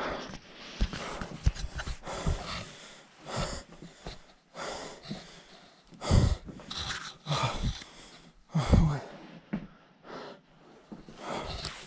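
A person breathing hard and unevenly close to the microphone, with gasping breaths, and a few low bumps from a handheld camera being moved.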